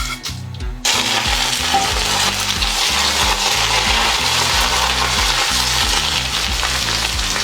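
Food sizzling in hot oil, a steady frying hiss that starts suddenly about a second in, with background music underneath.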